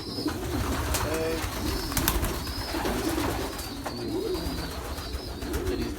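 Domestic pigeons cooing in a loft, several low, wavering coos overlapping, with a couple of sharp taps about one and two seconds in.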